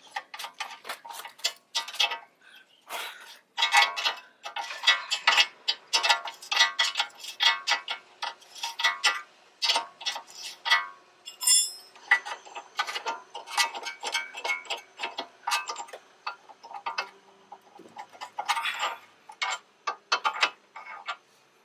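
Hand ratchet wrench clicking in runs with short pauses, with metal tools clinking, as the rack-and-pinion mounting bolts are worked loose.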